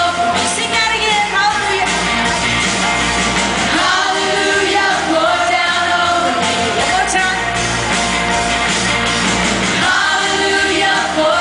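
Loud praise-and-worship song: music with singing, and a crowd of children singing and shouting along with it.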